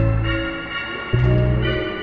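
Background music: held chords over a heavy bass note that comes in again about every second and a half, once about a second in.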